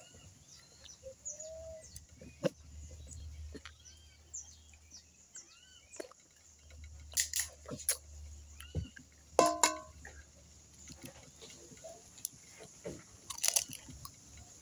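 Crab shells being cracked and eaten at close range: scattered crunches and clicks, with several sharp, loud cracks. Small birds chirp throughout.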